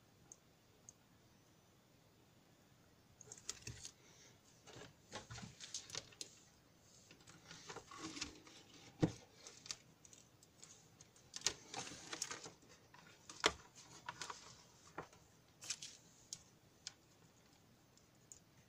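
Irregular clicks, taps and short rustles of small wires, test leads and crocodile clips being handled and repositioned, starting about three seconds in.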